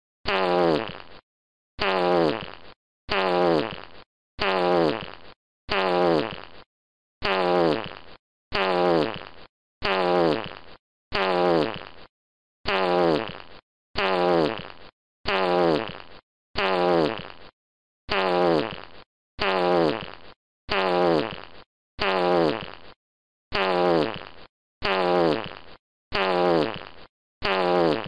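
A fart sound effect played over and over, about once a second. Each fart is a short sputtering tone that falls in pitch and fades out, with a brief silence before the next.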